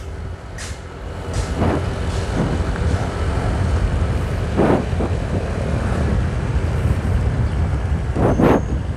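Motorcycle riding along at steady speed: the engine's low running note with road and wind noise on the microphone, and a few brief gusts.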